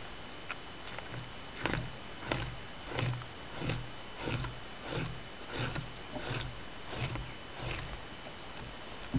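Blade scraping a raw deer hide in steady strokes, about ten of them at roughly one and a half a second, each a short scrape with a low thud, starting about a second and a half in.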